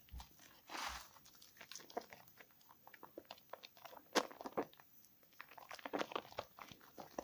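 A bar of soap being lathered by hand: irregular crackling clicks and small wet squelches, with a short rubbing swish just before a second in.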